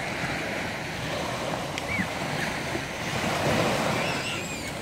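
Small waves breaking and washing up on a sandy beach: a steady rush of surf with wind on the microphone, swelling a little about three seconds in.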